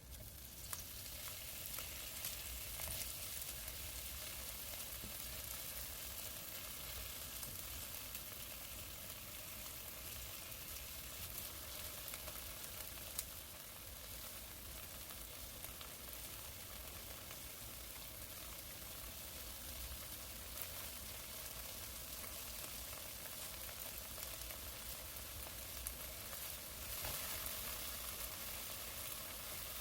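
Food sizzling steadily in hot oil in a frying pan, with an occasional sharp click, the loudest about 13 seconds in.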